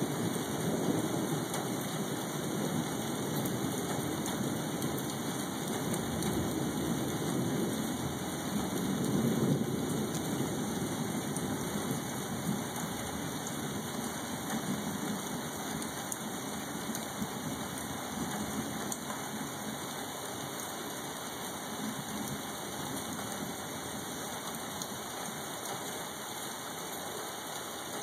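Steady hiss of rain with distant thunder rumbling in long, low swells, the strongest about nine seconds in, the rumbling dying away towards the end.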